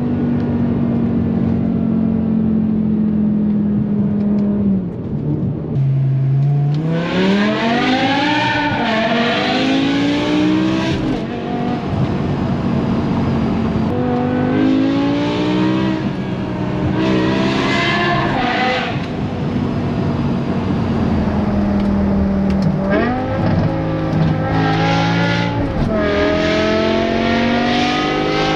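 BMW M5 E61's 5.0-litre naturally aspirated S85 V10 running at steady revs, then being revved hard several times, its pitch climbing steeply and dropping abruptly at each gear change.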